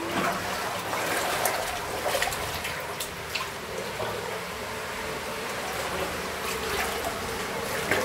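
Spring water running and trickling through a narrow rock cleft, with a few short, sharp splashes along the way.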